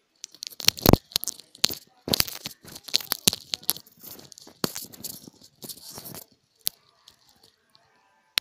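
Close-up rustling, crinkling and sharp clicks in irregular bursts, thinning out to a few scattered clicks about six seconds in.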